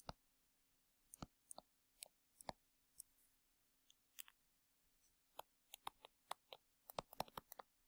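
Faint, scattered clicks of a stylus tapping and dragging on a drawing tablet while handwriting, a few every second, quickening into a rapid run near the end.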